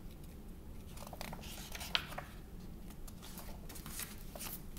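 Faint paper rustles and soft clicks as a picture book's pages are handled and turned, with one sharp click about two seconds in.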